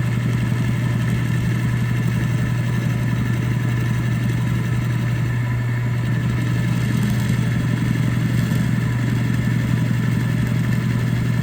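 Drill press running steadily with a 5/16-inch end mill as a steady motor hum, lowered a few thousandths at a time to mill a shallow channel into an airgun magazine lid.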